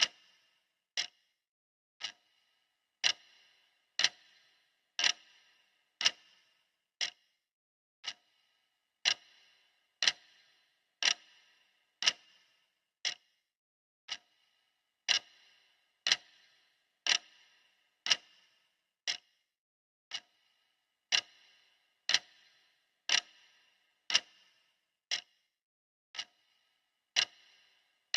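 Clock ticking steadily, one sharp tick per second.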